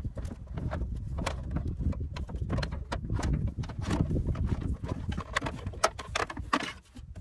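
Thick 4-gauge battery cable being worked down through a truck's engine compartment, rubbing and knocking against the plastic fuse box and hoses in many irregular sharp clicks and taps.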